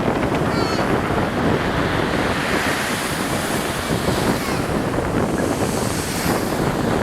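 Strong wind buffeting the microphone over surf breaking on the shore, a steady loud rushing noise.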